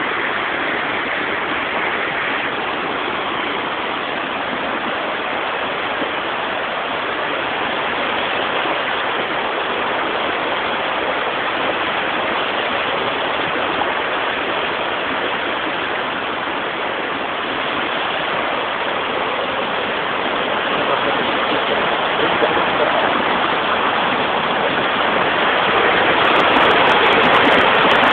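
Muddy floodwater after heavy rain rushing and churning over rocks in a channel: a steady rush that grows louder over the last several seconds.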